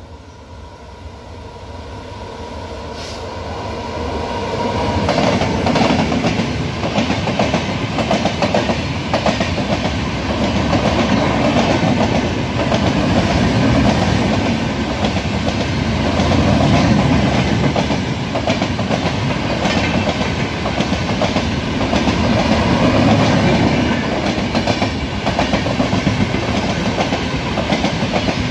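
Indian Railways passenger express hauled by a WAP-7 electric locomotive running through a station without stopping, at a restricted speed. The sound grows louder over the first five seconds as the locomotive approaches, with a steady tone during the approach, then settles into the continuous rumble and rhythmic clickety-clack of the coaches' wheels over the rails as they pass close by.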